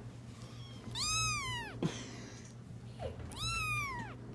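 A young kitten meowing twice, about two seconds apart; each meow is high-pitched, rising then falling.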